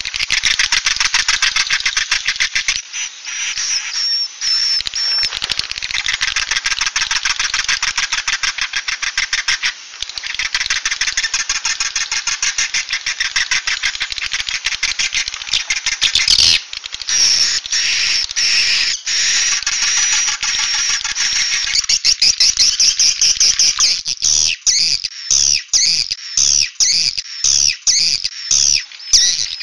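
Swiftlet 'suara inap' roosting lure call, the recorded sound played in swiftlet houses to draw the birds in to roost: a dense, rapid twittering chatter full of clicks. It breaks off briefly about halfway, and over the last few seconds it turns choppier, into separate chirps with short gaps.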